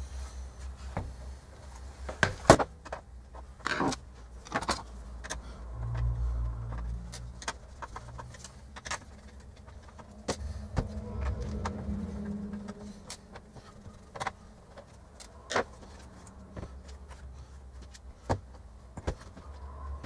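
Handling noise from the opened metal chassis of a Racal-Dana 1991 universal counter: scattered clicks and knocks as it is tilted, set down on a cutting mat and its front panel worked loose, with the loudest knock about two seconds in.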